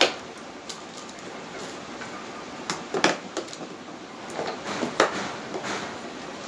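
Small toiletry bottles and plastic items being picked up and set down on a wooden dressing table: a sharp knock at the start, then short bursts of clatter and taps about three seconds in and again around five seconds.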